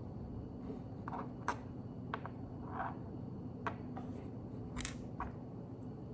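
Lego plastic pieces being handled and pressed together: several short, sharp clicks and taps at uneven intervals over a steady low background hum.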